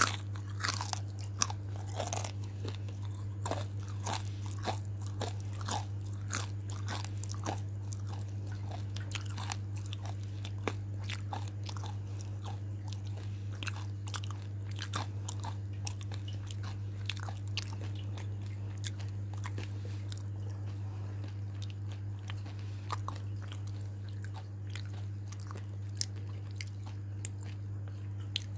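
Close-up crunchy chewing of crispy deep-fried battered food: crisp crunches, frequent at first and thinning out later, over a steady low electrical hum.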